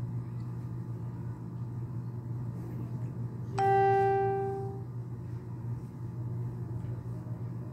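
A single chime-like tone rings once, about three and a half seconds in, starting sharply and fading over about a second, over a steady low hum.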